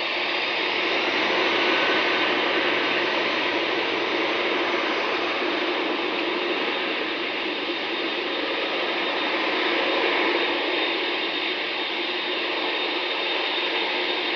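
Jet engines of a taxiing Boeing 747, a steady rushing roar with a faint high whine, swelling slightly twice.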